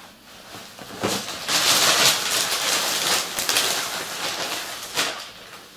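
Fabric rustling as trousers are handled and folded, a crackling noise lasting a few seconds, then one short click near the end.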